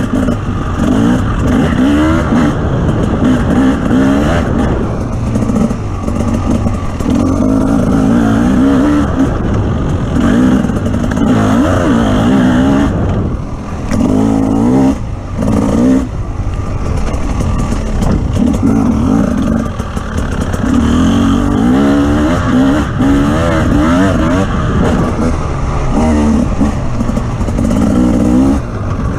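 Off-road vehicle's engine running loud, its pitch rising and falling again and again as the throttle is opened and backed off, with a couple of brief drops in level about halfway through.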